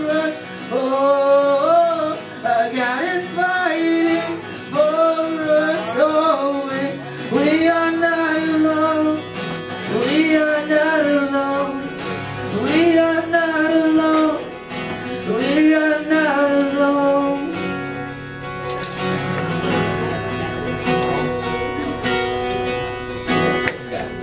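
Male voice singing long, held notes without clear words over strummed acoustic guitar. The singing stops about two-thirds of the way through, and the guitar plays on alone as the song closes.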